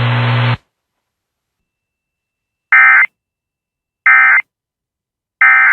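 Emergency Alert System end-of-message data: three short bursts of warbling digital SAME tones, about 1.3 s apart, marking the close of the alert. Before them, the hum of the broadcast audio cuts off about half a second in.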